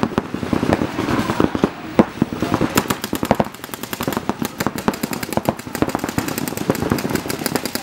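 Paintball markers firing rapid strings of shots, many pops a second, overlapping from several guns; the shooting comes thickest from about three seconds in.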